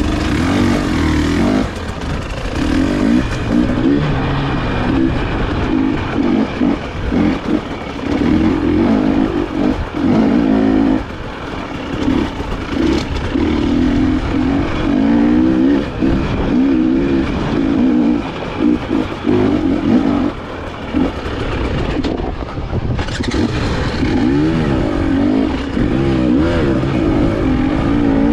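A 2021 KTM 300 XC TPI's two-stroke single-cylinder engine running as the dirt bike is ridden, its pitch rising and falling again and again as the throttle is opened and closed.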